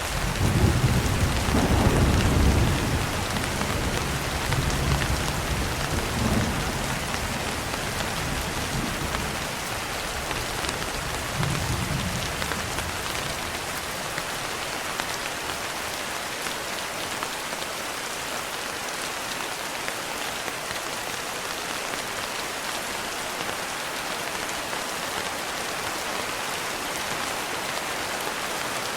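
Steady heavy rain hissing, with a low thunder rumble breaking in at the start that is loudest for about three seconds. Fainter rolls follow at about five, six and twelve seconds in, then the rain carries on alone.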